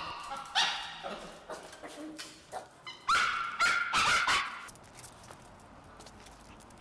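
Small Maltese dogs barking and yelping in short, high yaps, impatient and excited to go out for a walk. The yaps come about half a second in and in a cluster around three to four and a half seconds, then die away.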